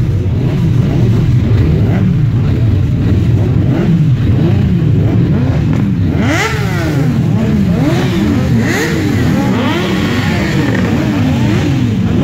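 Several Kawasaki sport motorcycles running together at the kerb. Their engines idle with occasional blips, then from about halfway through many of them are revved up and down at once, the revs overlapping.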